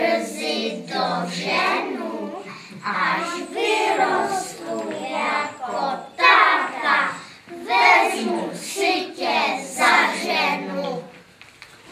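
A small group of young children singing together, with no instruments clearly heard. The singing ends about 11 seconds in.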